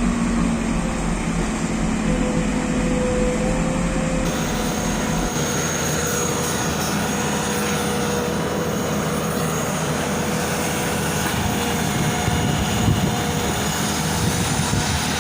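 Long-reach Tata excavator's diesel engine running steadily under digging work, with a faint steady whine over the drone.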